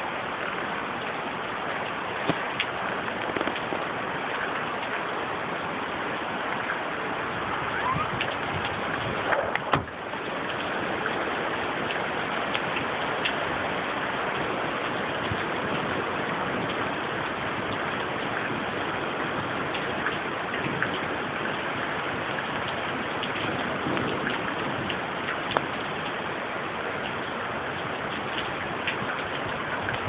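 Storm rain and wind making a steady, even hiss, with scattered sharp ticks of drops throughout.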